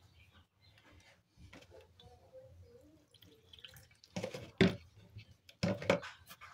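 Hands kneading stiff bolillo bread dough on a wooden table: soft sticky squishes, then two louder wet smacks of the dough, about four and about five and a half seconds in.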